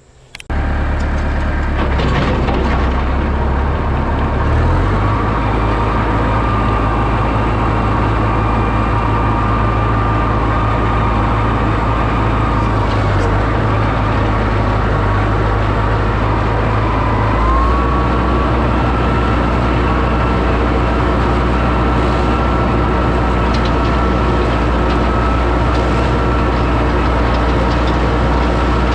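Tractor running steadily under load, driving a 10-foot Woods rotary mower with its blades freshly sharpened and refitted, with a thin steady whine over the low drone. The drone shifts in pitch about five seconds in and again a little past halfway.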